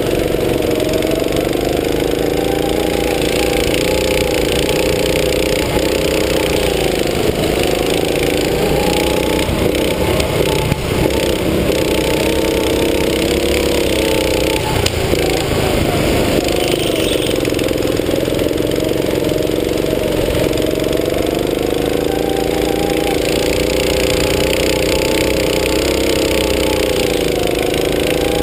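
Go-kart's small petrol engine running hard, close up. Its pitch climbs and drops again and again, dipping about a quarter of the way in, around the middle and near the end as the kart slows for corners and speeds up on the straights.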